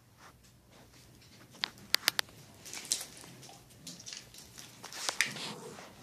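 A few sharp clicks of dog claws on a wooden parquet floor, then soft wet licking and slurping as a basset hound licks a poodle's face.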